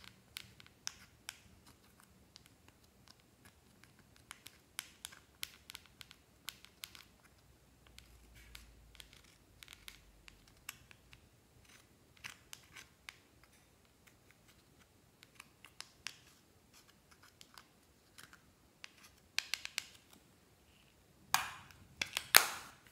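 Thin metal spatula scraping and picking pressed eyeshadow out of the pans of a plastic compact palette: an irregular string of small scratches and clicks. A few louder scrapes and knocks come near the end as the compact is handled.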